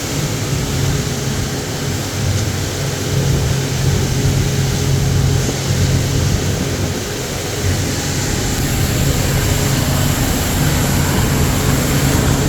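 Watercraft engine running steadily under way, a constant low hum, with rushing wind and water noise over it.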